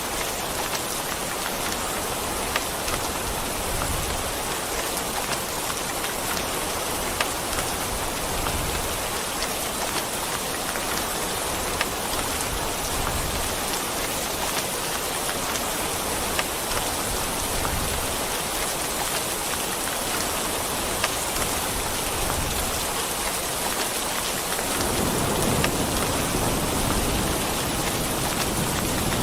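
Steady heavy rain falling on a surface, with scattered sharp drop taps. Near the end a low rumble of thunder swells in under the rain.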